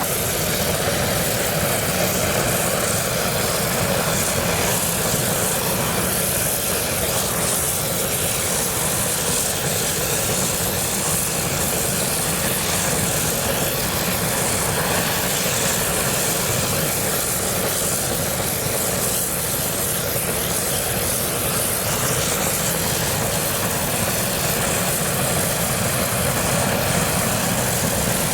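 Oil burner burning furnace fuel oil, running with a steady, even noise that does not change.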